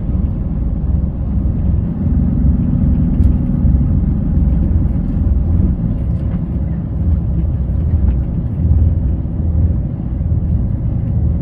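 Truck's diesel engine and rolling noise droning steadily inside the cab while driving slowly, a low rumble with a faint steady hum a couple of seconds in.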